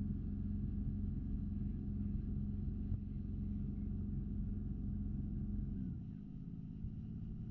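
Sailing yacht's inboard auxiliary engine running steadily in reverse gear, a low even hum. About six seconds in, its tone changes and it gets slightly quieter.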